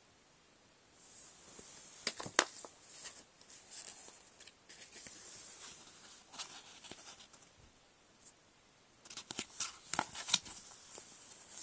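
Glossy sticker sheets and sticker-book pages being handled and turned: rustling with sharp crackles and clicks, in one burst about two seconds in and another around nine to ten seconds.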